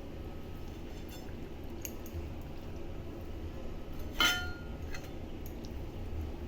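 A cooking utensil clinks once, loud and ringing, against the kadai about four seconds in, with a few lighter taps before and after it, over a steady low hum.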